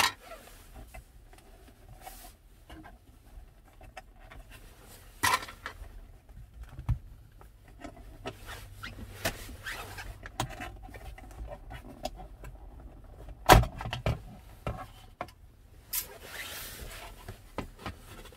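Plastic trim cover at the rear-view mirror base being pried and pulled loose by hand: scattered rubbing and light clicks, with one sharp snap of a clip about two thirds of the way through.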